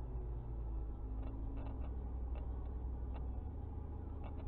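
Steady low road and engine rumble heard inside a moving car's cabin, with a few faint, irregular light ticks.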